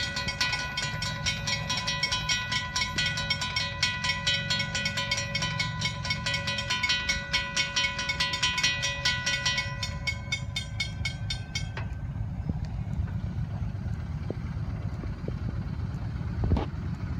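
Railroad grade-crossing bell dinging rapidly with a steady ringing tone, then cutting off suddenly about twelve seconds in, after the gates are down. A low rumble runs underneath, and there is a single thump near the end.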